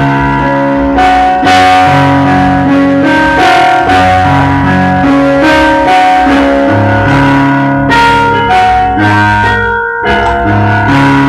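Electronic keyboard played with both hands, held notes and a melody over a low bass line that moves about once a second. Only the black keys are used, so the music stays within a pentatonic scale.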